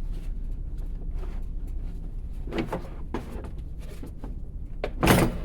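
Clicks and knocks from handling a portable bandsaw while its blade tension is set, with one louder metallic clunk about five seconds in.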